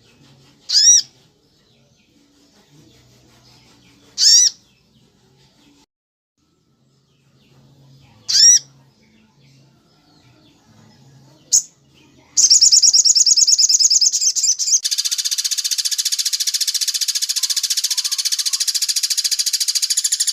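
Bird calls from a songbird tutor recording: a short, arching call repeated four times about four seconds apart. Then a loud, fast trill starts about twelve seconds in and thickens at about fifteen seconds into a dense, harsh rattle that goes on.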